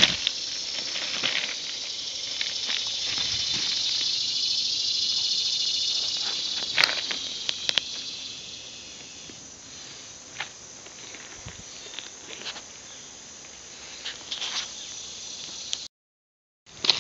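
High, steady insect drone that swells over the first several seconds and then fades, with scattered crunches and clicks of footsteps and handling on loose gravel ballast. The sound cuts out completely for under a second near the end.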